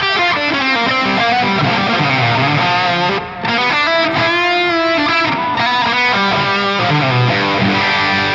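Electric guitar played through a Valeton GP-200 multi-effects processor on its factory high-gain drive preset with delay. It mixes held notes and quick runs, with a brief break about three seconds in.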